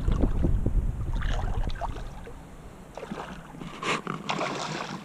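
Wind buffeting the microphone, then, about four seconds in, a hooked redfish splashing at the surface beside the boat in a few short bursts.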